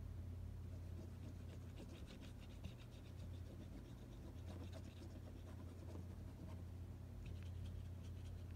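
Coloured pencil scratching back and forth on paper in quick shading strokes, in two spells, over a steady low hum.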